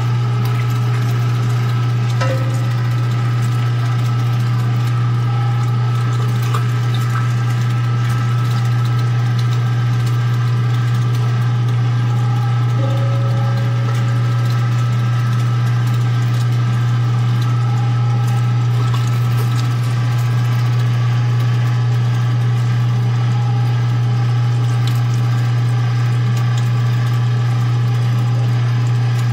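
Cabela's Carnivore #12 3/4 hp electric meat grinder running steadily with a strong, constant low hum while grinding meat, with a few faint clicks. The meat feeds through without needing to be pushed.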